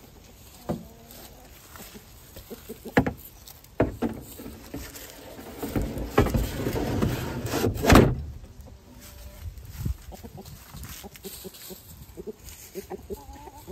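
A hard plastic coop part being handled and fitted back into an Omlet Eglu Cube: a few separate knocks, then a longer scraping rustle that ends in a loud knock about eight seconds in, with lighter clicks after.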